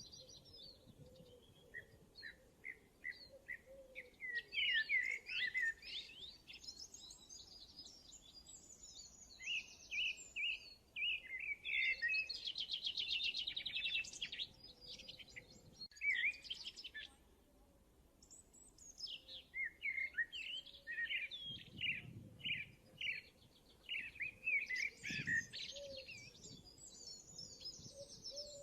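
Birds chirping and singing: series of short repeated chirps and fast trills that come in bouts with brief pauses between them.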